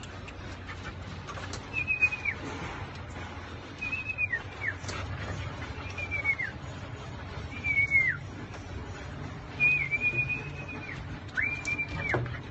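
Husky-type puppies whining: a series of six high, thin whines about two seconds apart, each held briefly and then dropping sharply in pitch.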